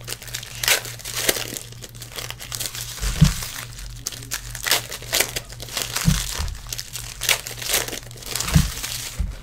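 Foil trading-card packs being crinkled and torn open by hand, a dense run of short crackles, with a few dull thumps against the table over a low steady hum.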